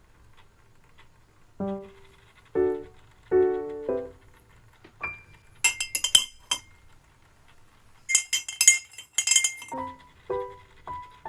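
Light background music of short piano-like notes, broken in the middle by two quick clusters of bright, ringing clinks of glass tapping against glass or ceramic.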